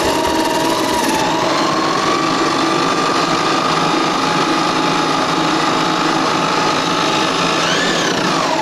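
Hand drill driving a homemade drum sander, its motor running steadily with a whine. The pitch rises and then drops near the end.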